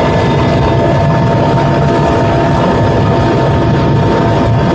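Helicopter turbine engines and rotor running loud and steady, a constant high whine over a dense low rumble.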